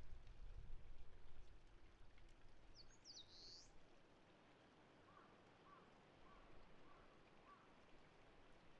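Quiet outdoor ambience with a low rumble that fades away over the first few seconds. About three seconds in a small wild bird gives one brief high call, and a few faint, short chirps follow later.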